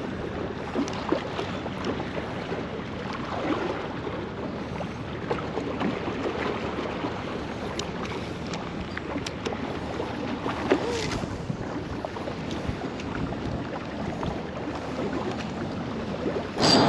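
Wind and water lapping, with scattered light clicks. A louder rushing noise comes in at the very end.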